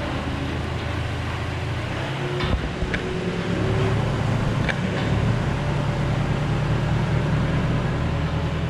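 Tractor diesel engine running steadily, picking up a little about two and a half seconds in as it starts pulling the hitched auger grain cart, with a few light clanks.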